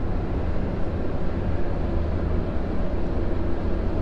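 A car cruising on an expressway: a steady low rumble of tyres and engine, with a faint even hum.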